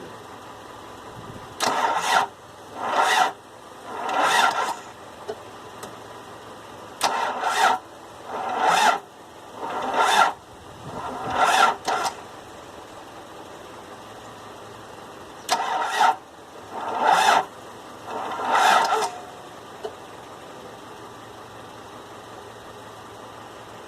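Repeated short start attempts on a Toyota 22RE 2.4-litre four-cylinder: about ten brief bursts of starter noise, each under a second, in three groups. The engine never catches and runs, which fits a no-start fault in which it won't turn over.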